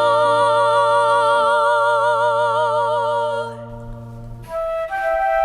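A singer holds a long final note with vibrato over a sustained low accompaniment, which ends about three and a half seconds in. After a brief hush, a flute begins a new melody.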